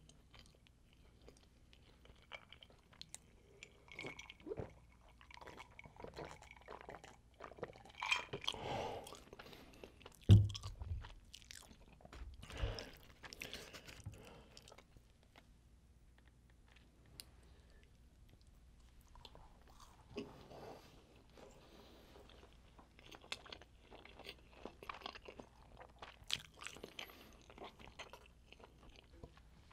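Close-miked chewing of a McDonald's cheeseburger, with moist mouth sounds and crunching, and the burger's paper wrapper crinkling. A sharp heavy knock on the table comes about ten seconds in.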